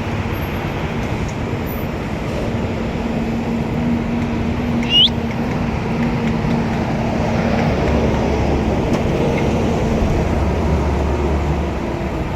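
Street traffic noise with vehicle engines running steadily and a low hum. About five seconds in, one short high whistle rises in pitch; it is the loudest sound.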